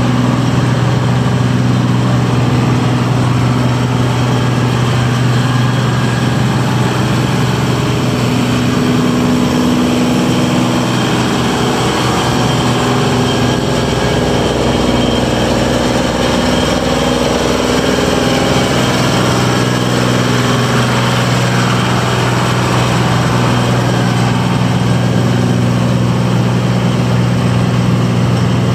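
Long 2360 tractor's 45 hp Uzina diesel engine running steadily as the tractor is driven around, its sound changing for a few seconds about halfway through as it comes close and turns, with a deeper rumble.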